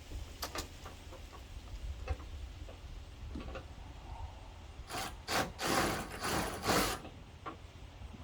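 Hand work on tailgate assist hardware: a few small clicks and taps, then about five seconds in a quick run of four or five loud rasping scrapes over some two seconds. A steady low rumble lies underneath.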